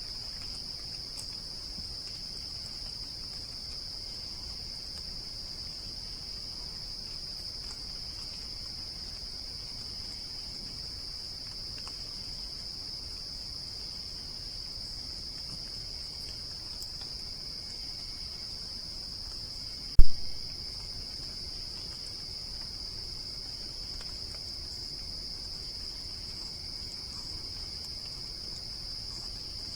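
Steady, continuous high-pitched chorus of night insects such as crickets, without pause. About two-thirds of the way through, a single sharp loud click cuts in.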